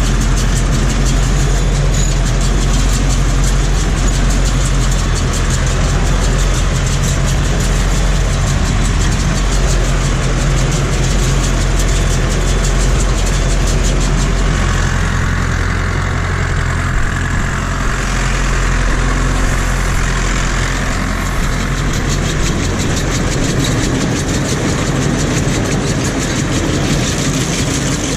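Farm tractor engine running steadily at idle, heard close up.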